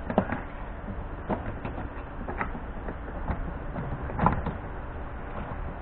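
Plastic windshield cowl panel being set back onto the car body: several sharp plastic clicks and knocks, the loudest about four seconds in, over a steady low hum.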